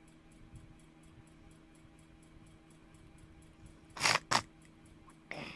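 Quiet room hum with faint rapid ticking. About four seconds in come two sharp clicks in quick succession, and a softer click near the end.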